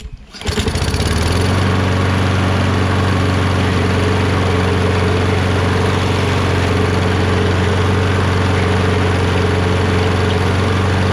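Kohler XT675 single-cylinder mower engine starting about half a second in, catching at once, then running steadily.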